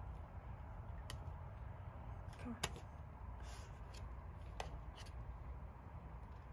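A few light plastic clicks and taps of a key card being held and tapped against a door's card reader, the sharpest about two and a half seconds in, over a steady low rumble.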